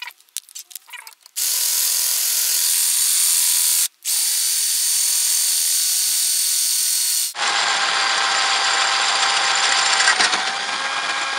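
A few sharp clicks, then a power drill starts about a second and a half in and runs steadily, stopping briefly near four seconds. From about seven seconds its sound changes and reaches lower as the bit cuts into the metal of a fire extinguisher's valve cap, enlarging the hole to fit a tubeless valve.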